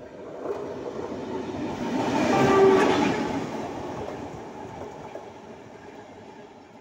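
TEM2 diesel shunting locomotive passing close at speed, its engine and wheels on the rails swelling to a peak and then fading as it goes by. A short horn blast sounds about two and a half seconds in, as it passes.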